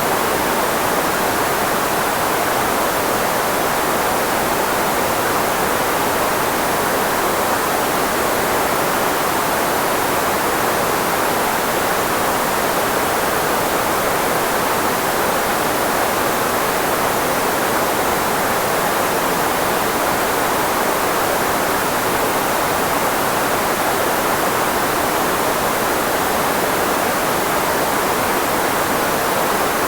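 Steady synthetic white noise, filtered so that most of its energy lies in the range of the human voice, to mask speech; an even, unchanging hiss.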